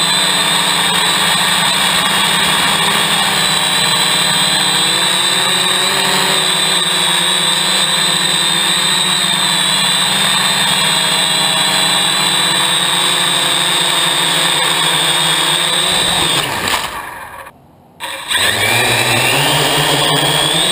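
A hexacopter's electric motors and propellers run with a steady whine. About three-quarters of the way through they wind down, falling in pitch, as it comes down into the grass. They go nearly quiet for about a second, then spin back up with a rising whine.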